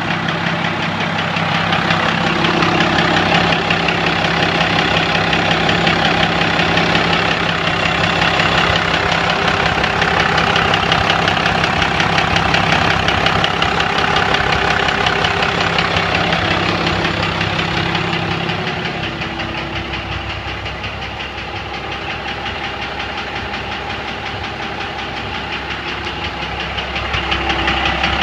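1997 Dodge Cummins 5.9-litre inline-six turbodiesel idling with a steady, rapid knock over the usual diesel clatter; the owner suspects injector knock, with some fuel in the oil and no metal found. It gets quieter for several seconds about two-thirds of the way through, then louder again near the end.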